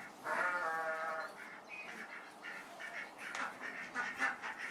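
Farm animals calling: one long, slightly falling bleat in the first second, then a run of short, harsh calls.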